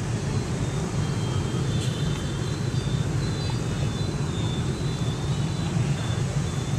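Steady low rumble of street traffic and motorbike engines, with a few faint, brief high tones.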